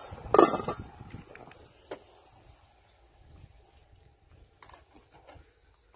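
A stainless steel pot lid clatters against the rim of a pot of boiling soup about half a second in, briefly and loudly. A few faint knocks and ticks follow.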